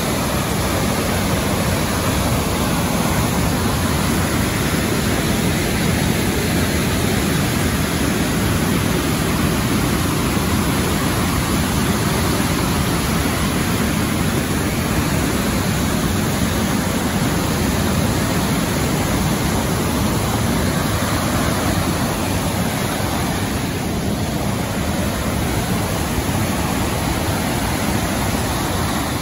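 Flood-swollen mountain creek rushing over rock ledges: a steady, loud roar of whitewater.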